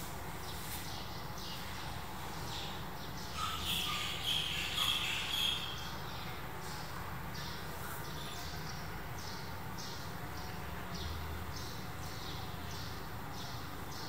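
High chirping repeating about every half second over a steady outdoor hiss, with a louder cluster of high chirps about four to five seconds in.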